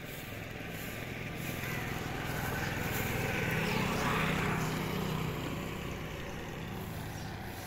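Motorcycle passing by on the road, its engine growing louder to a peak about halfway through and then fading away.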